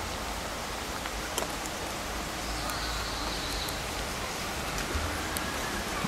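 Steady rush of flowing river water, with a few faint clicks about a second and a half in.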